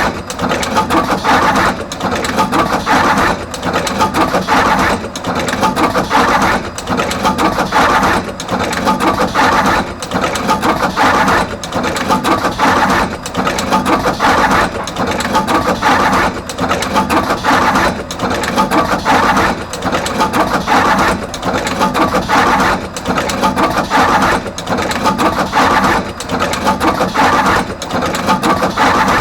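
Artos CR22 automatic wire cut, strip and crimp machine running in production. It repeats the same mechanical cycle with a short pause roughly once a second as it processes wire after wire.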